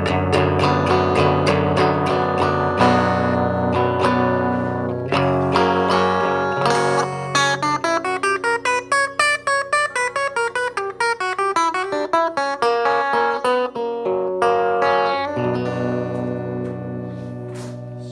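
Electric guitar played through the McGrath Mini amplifier, its channel gain turned up for a gainier tone. It plays chords, then a fast run of single notes in the middle, then chords again that ring out and fade near the end.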